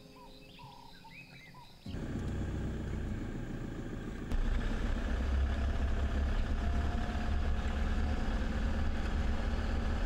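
Steady engine and road rumble of a car driving slowly, heard from inside the vehicle, starting suddenly about two seconds in and growing louder about two seconds later.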